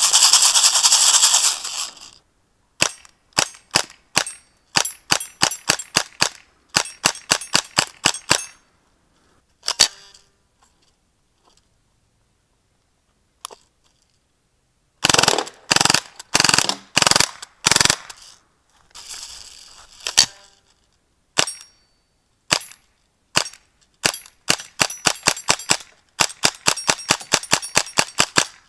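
Umarex Steel Force CO2 BB gun firing: sharp pops, some single and many in quick bursts of several shots, with quiet gaps between strings. A loud rushing noise fills the first two seconds.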